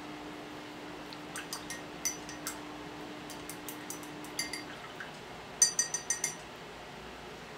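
Paintbrush clinking against a glass water jar while being rinsed. Scattered light clinks give way to a quick run of five louder clinks near the end.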